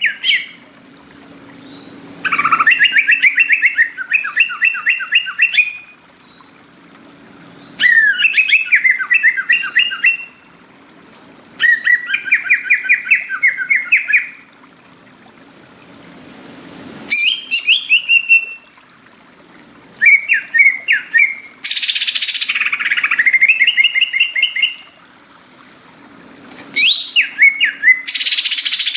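Greater green leafbird (cucak ijo) singing loudly in repeated bursts of rapid chattering, whistled notes, each phrase lasting two to three seconds with short pauses between. Harsh rasping notes are mixed in about 22 seconds in and again near the end.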